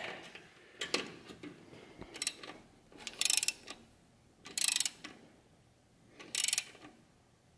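Socket ratchet clicking in three short runs, each about half a second, as it tightens a worm-gear hose clamp on a silicone intake coupler, with a few light knocks of the tool before the first run.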